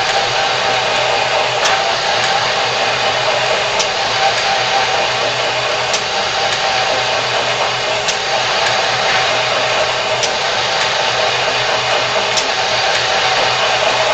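AutoDrill 5000 series pneumatic drilling unit running steadily, an annular cutter cutting through plate steel, with a short sharp click about every two seconds.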